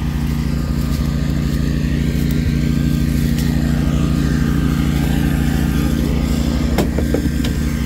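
Engines of a John Deere side-by-side and its towed Swisher rough-cut mower running steadily. Near the end come a few sharp knocks as a portable speaker is picked up and set back by the cargo bed.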